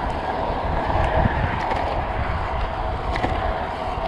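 Riding a road bike: wind rushing and buffeting the microphone over the steady hum of the tyres rolling on pavement, with a few faint clicks.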